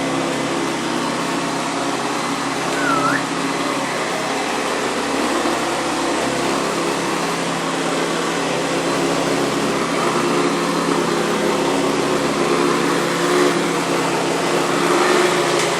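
Hoover Convertible upright vacuum cleaner running steadily, a constant motor hum with a rushing hiss of air, while it is being pushed over a rug. A short high chirp sounds about three seconds in.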